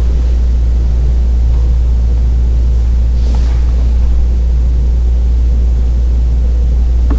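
A steady, loud low hum with a faint hiss above it, and one faint brief noise about three seconds in.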